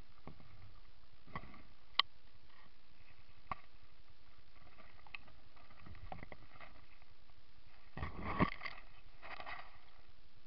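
Leaves and twigs brushing and rustling against the camera as it is pushed through woodland undergrowth, with scattered small clicks and snaps, a sharp one about two seconds in and the loudest burst of rustling about eight seconds in.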